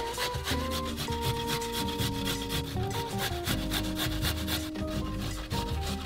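Garlic cloves being grated on a stainless steel box grater: a quick run of rasping strokes. Soft background music plays underneath.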